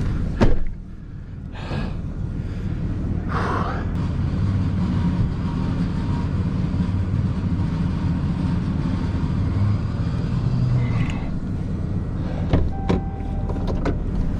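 Vehicle engine running at a steady idle, kept off the gas so the vehicle doesn't slide. A faint steady whine sits over it through the middle, and a few sharp clicks or knocks come about half a second in and again near the end.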